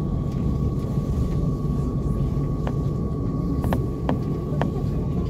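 Cabin noise aboard a Bombardier Incentro tram on the move: a steady low rumble with a steady high-pitched hum over it, and a few short sharp clicks in the second half.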